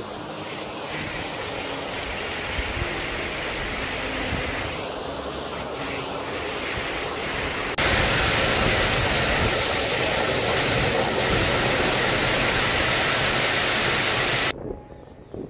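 Waterfall pouring over a stone weir into a pond: a steady rush of falling water. It turns suddenly louder about eight seconds in and cuts off abruptly near the end.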